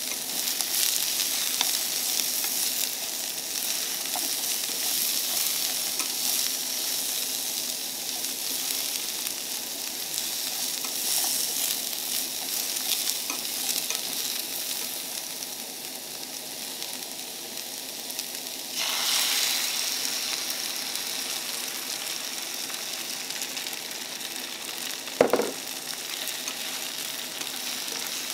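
Tomato slices sizzling and frying in a small pan on a portable gas stove, stirred with chopsticks that click against the pan. About 19 s in the sizzle suddenly gets louder as beaten egg goes into the hot pan, and a single sharp knock follows a few seconds later.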